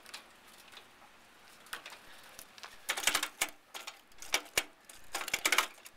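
1915 Harley-Davidson V-twin engine at a slow, uneven idle with the throttle closed. It is fairly quiet at first, then from about three seconds in comes a string of irregular sharp pops and clatters, some in quick clusters.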